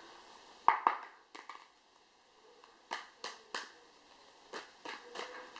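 Oracle cards being shuffled by hand: a series of separate soft card slaps and snaps at uneven intervals, about ten in all.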